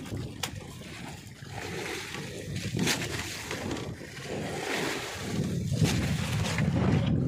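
Water sloshing and splashing with a few short knocks as fish are handled in a wooden boat's fish hold. A low rumble grows louder after about five seconds.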